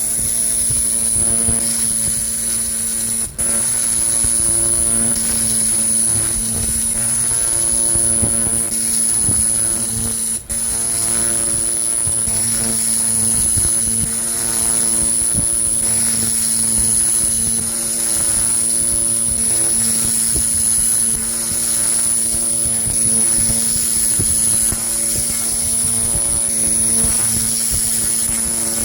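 300-watt pulsed fiber laser cleaner firing on an old school bell to strip rust: a steady hiss with a high whine over the machine's hum. It cuts out for a split second twice.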